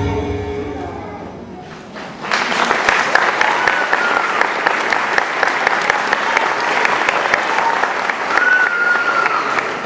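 Dance music ends and fades out; about two seconds in, an audience starts applauding, with a few shouts of cheering over the clapping.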